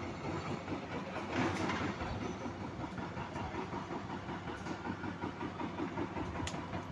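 A motor or engine running steadily, with a fast, even pulsing.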